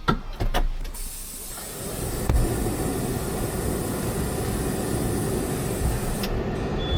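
Fendt tractor running with a low, steady rumble, under a steady high hiss that cuts off suddenly about six seconds in. There are a few sharp clicks at the start.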